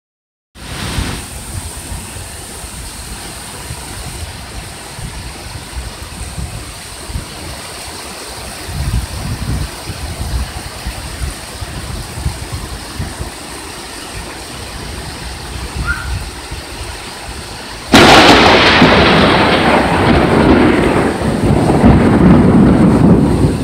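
Thunderstorm in Hurricane Harvey's rainbands: steady rain with low rumbles of thunder, then, about three-quarters of the way through, a sudden loud thunderclap that keeps rumbling.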